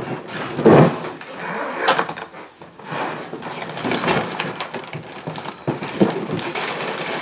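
Luggage being handled and unpacked indoors: irregular bumps, knocks and clicks with rustling of the contents, and one loud bump a little under a second in.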